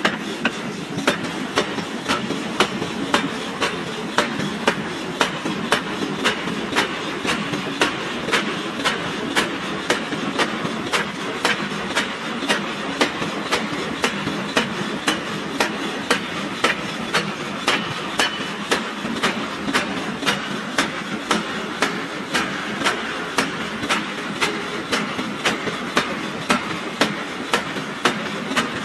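Hammer blows striking a red-hot steel ring forging on a mandrel, a steady beat of about two strikes a second over a continuous noise.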